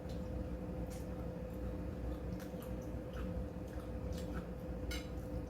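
A person chewing pan-fried jeon close to the microphone: soft wet squishing and small smacking clicks every second or so, over a steady hum.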